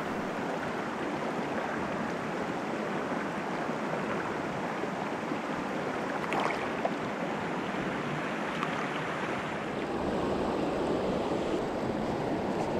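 Swollen, fast trout river rushing over rocks. About halfway through there is a small splash as a released trout slips back into the current.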